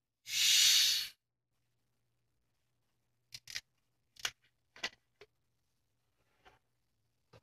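Plastic Coca-Cola bottle being unscrewed: a loud hiss of carbonation escaping lasting under a second, then several small sharp plastic clicks from the cap as it comes off.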